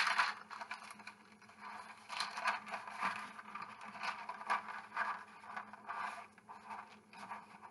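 Hands gathering and pressing crumbly pastry dough scraps on parchment paper: irregular crinkling and scraping of the paper, with a louder scrape right at the start as a glass bottle is moved on it.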